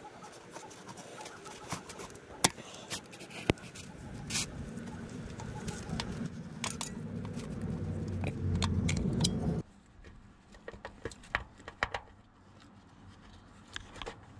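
Handling noise from gloved hands unplugging a lambda (oxygen) sensor's plastic wiring connector and working it through a grommet hole in a car's floor pan: scattered sharp clicks and rubbing. From about six seconds in there is a louder low rumbling rub, which stops abruptly just before ten seconds.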